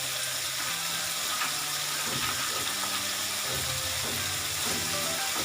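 Spice paste frying in hot oil in a cooking pot, a steady sizzling hiss.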